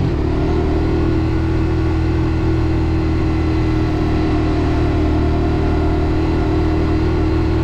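Suzuki GSX-R125's single-cylinder four-stroke engine running at a steady engine speed, its pitch settling lower about the start and holding even throughout.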